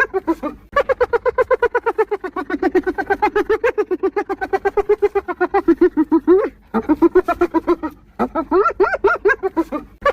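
Spotted hyena giggling: fast runs of high-pitched, yelping laugh notes, about eight to ten a second, in several bouts broken by brief pauses.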